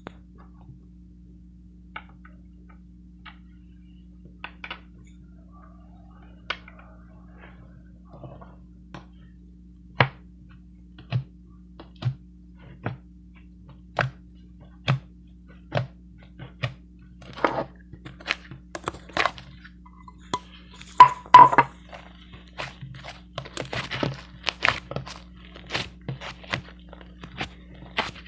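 A series of sharp clicks and crunches, sparse at first, then about one a second, then crowding together, over a steady low hum; a brief squeak about two-thirds of the way in is the loudest sound.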